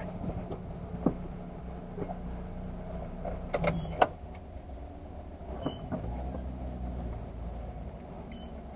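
Car engine idling, heard from inside the cabin as a steady low hum, with a few sharp clicks and knocks, the loudest about four seconds in.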